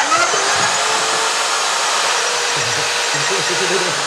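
Corded electric drill switched on and running continuously at full speed: a loud, steady whirring hiss that starts suddenly.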